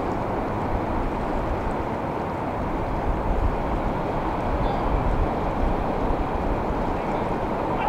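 Steady rushing of ocean surf, mixed with a heavy low rumble of wind on the microphone.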